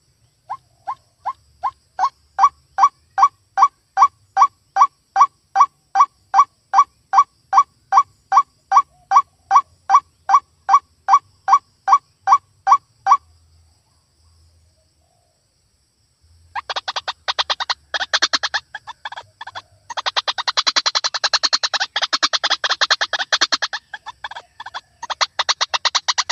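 White-breasted waterhen (ruak-ruak) calls. The first is a steady series of short, repeated notes, about three a second, that grow louder over the first couple of seconds and stop about 13 seconds in. After a pause of about three seconds comes a fast, harsh chattering that runs on with short breaks.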